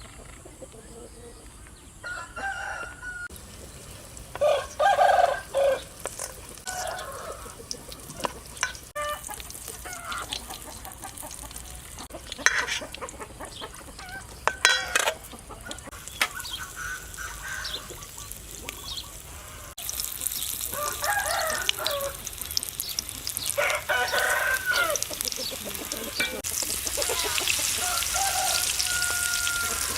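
Chickens clucking with a rooster crowing, in repeated calls, with a few sharp knocks. In the last third a steady hiss of food frying in a pan comes in under the calls.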